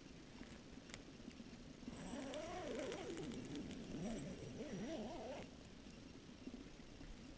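A dog whining in quick rising and falling glides for about three seconds, starting about two seconds in.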